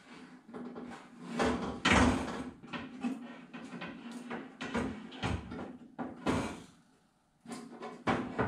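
Irregular knocks, clunks and scraping as the door glass of a 1970 Datsun 521 truck is handled and worked in its door channel to get it out. The loudest knock comes about two seconds in, and there is a short lull near the end.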